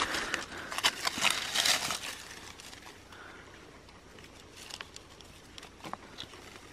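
Dry leaf litter crackling and rustling and loose stones shifting as hands rake through leaves and lift rocks. A busy cluster of crackles comes in the first two seconds, then only a few faint scattered ticks.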